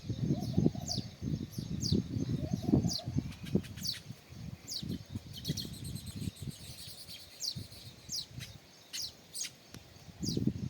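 House sparrows chirping: many short high chirps, each dropping quickly in pitch, coming several times a second. Louder low-pitched sounds of unclear source sit under them in the first few seconds.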